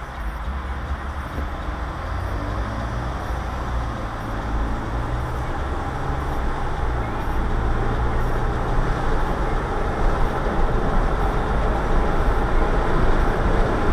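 Road noise of a moving car heard from a dashcam inside the cabin: a steady low engine and tyre rumble that grows gradually louder.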